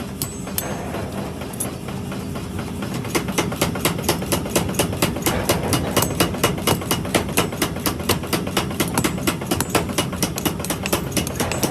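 Forging hammer blows on metal: a fast, even run of strikes, about four or five a second, starting about three seconds in, over a steady machine hum.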